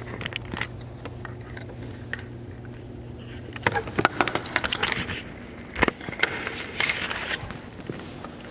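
Handling noise from a camera being picked up and carried: rustling and scraping with a run of sharp clicks and knocks in the middle and a low thud near six seconds. A steady low hum sits under the first half.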